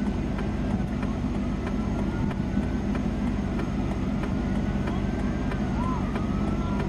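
Steady low rumble of an idling vehicle engine, with a faint high tone wavering slowly up and down above it.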